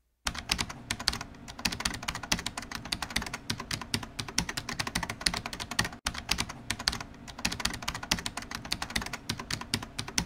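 Rapid, dense clicking of fast typing on a computer keyboard. It starts just after the beginning, with a brief break about six seconds in.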